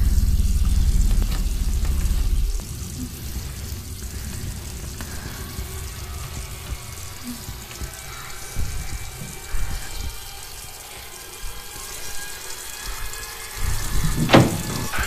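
Horror film sound design: a deep rumbling drone that drops away after about two and a half seconds, leaving a steady hiss with faint high tones, then a sharp hit near the end.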